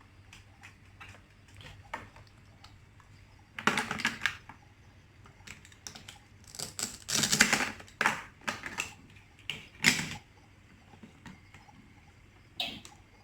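Plastic toy kitchen pieces being handled: scattered light clicks and knocks, with short bursts of clattering about 4, 7 and 10 seconds in.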